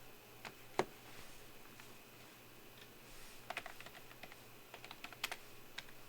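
Scattered light clicks and taps: one sharper click about a second in, then irregular clusters of quick clicks in the second half.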